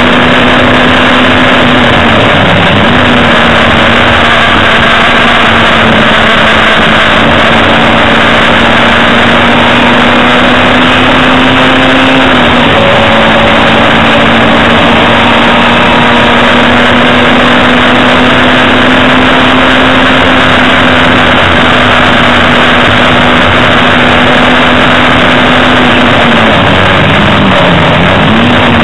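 Hillman Imp race car's rear-mounted four-cylinder engine, heard loud from inside the cabin, held at steady high revs. The revs dip and pick up again briefly about two and a half seconds in and again near the end, with a small drop in pitch around the middle.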